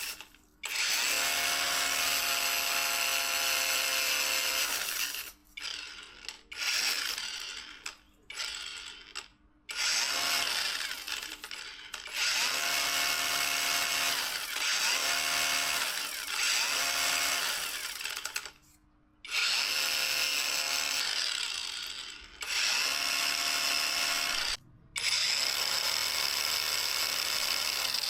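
Handheld electric power tool running in stretches of a few seconds, its motor whine starting and stopping several times, the pitch rising as it spins up and falling as it winds down.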